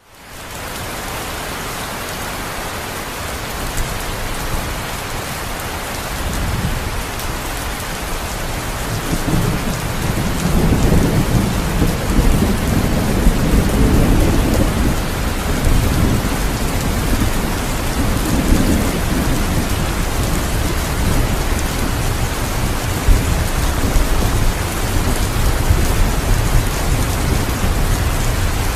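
Steady heavy rain with a low rolling rumble of thunder that swells about ten seconds in and keeps rumbling underneath the rain.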